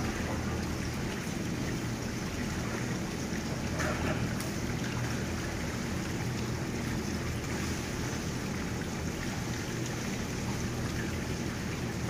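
A steady low rumble and hiss, like a fan, motor or wind on the microphone, holding level throughout.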